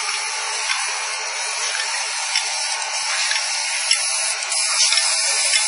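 Sticker labeling machine running: a steady, thin mechanical noise with scattered light clicks.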